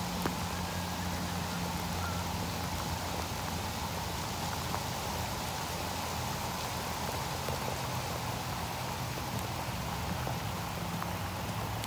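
Steady rain falling, an even hiss, with a low steady hum underneath and only a few faint clicks.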